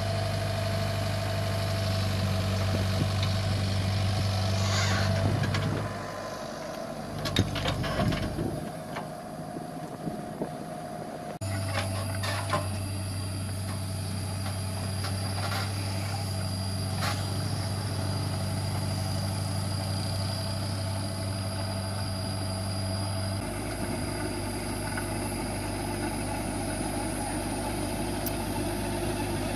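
Komatsu PC75 mini excavator's diesel engine running steadily as it works dirt. For a few seconds early on the engine note drops and knocks and scrapes of the bucket and blade in the soil come through. The engine sound shifts abruptly twice.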